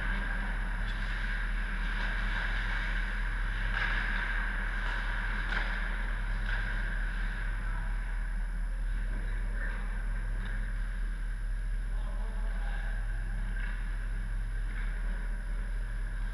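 Steady low machinery hum filling an indoor ice rink, with a few faint scrapes and knocks of skates and sticks from play at the far end.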